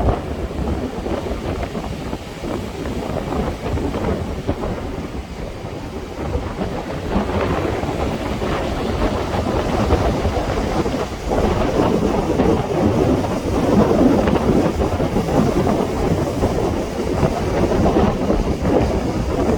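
Sea waves surging and washing ashore: a continuous rushing rumble that swells louder about seven seconds in and again from about twelve seconds, with wind buffeting the microphone.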